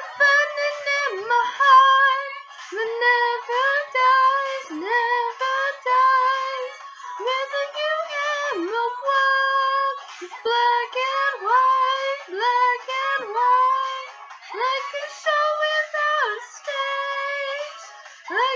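A girl singing a high, wordless melody of short notes that slide up and down, with no instruments heard.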